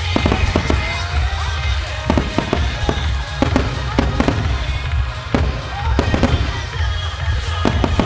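Firework shells bursting in quick, irregular succession: sharp bangs and crackles over deep rumbling booms, with the display's music playing through loudspeakers underneath.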